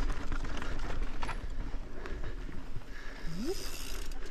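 Mountain bike rolling fast over a rocky dirt trail: tyres crunching over stones, with a rapid, uneven run of knocks and rattles from the bike over a steady low rumble.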